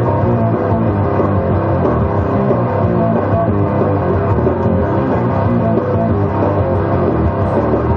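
Guitar-driven rock music playing steadily through a pair of JBL ARC50 bookshelf loudspeakers.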